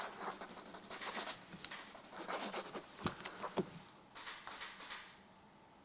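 Ballpoint pens scratching on paper, with papers and document folders being shuffled and handled, as a run of short scratchy strokes and light clicks; a quick cluster of clicks comes a little past the middle.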